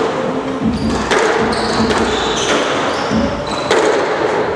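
Squash ball being struck by rackets and smacking off the court walls, several sharp hits with echo, mixed with short squeaks of court shoes on the floor.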